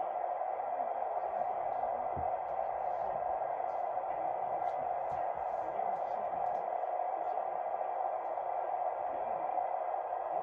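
Steady hiss of radio static from a receiver's speaker, with no voice coming through.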